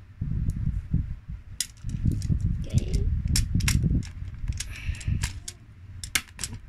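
Magnetic balls clicking and snapping together as they are pulled apart and rearranged by hand, an irregular run of sharp little clicks over a low rumble.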